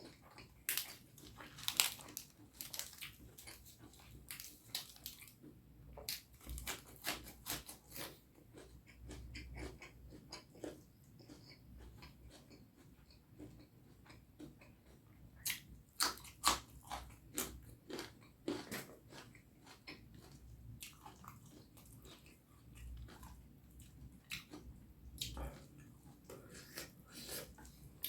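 Close-miked chewing and wet mouth smacks of someone eating curry and rice: irregular clusters of short clicks and smacks, with a quieter stretch in the middle.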